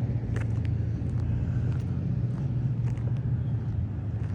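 Steady low rumble of a vehicle engine running, with a few faint clicks.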